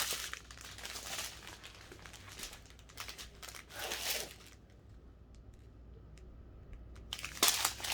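Small plastic bags of diamond-painting drills crinkling and rustling as they are handled. The rustling comes in bursts, goes quiet with a few faint ticks past the middle, then turns louder again near the end.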